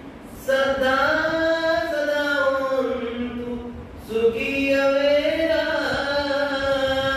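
A man chanting Buddhist verses in Pali in long, drawn-out phrases, the pitch gliding up and down; one phrase begins about half a second in and a second about four seconds in.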